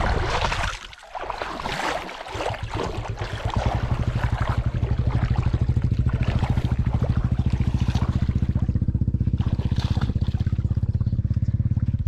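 An engine running steadily with a fast, even throb, starting about three seconds in after some irregular noise.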